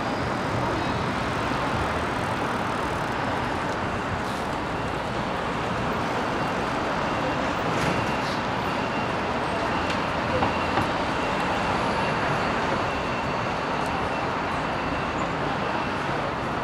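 Steady city street traffic noise: an even hiss and rumble of vehicles on the road.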